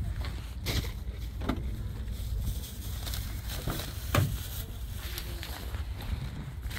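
A few scattered footsteps crunching on gravel over a low rumble of wind on the microphone.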